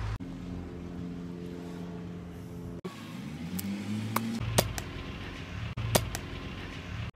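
Edited film soundtrack: a steady low music chord held for nearly three seconds, then cut off sharply. A low tone then slides upward, and about five sharp gunshot sound effects crack out between the middle and the end as a toy blaster is fired on screen.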